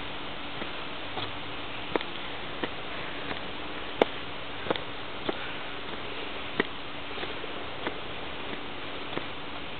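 Footsteps climbing stone steps: a sharp tap about every two-thirds of a second, over a steady hiss and a faint hum.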